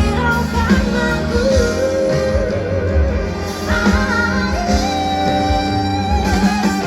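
Live pop band playing with a voice singing over it; a long held sung note in the second half.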